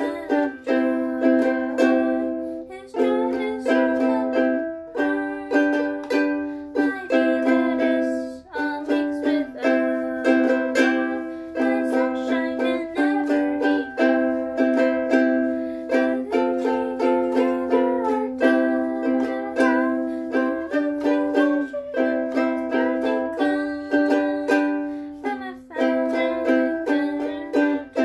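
Ukulele strummed in chords, each strum ringing and fading, the chord changing every second or two in a slow, even accompaniment.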